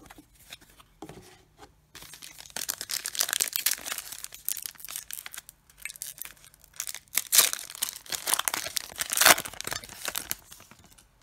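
Foil wrapper of a Panini Contenders football card pack being torn open by hand, tearing and crinkling from about two seconds in, with two louder rips in the last few seconds.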